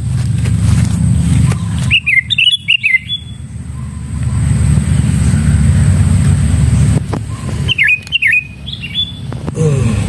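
Two short bursts of quick sooty-headed bulbul chirps, about two seconds in and again about eight seconds in, over a steady low rumble.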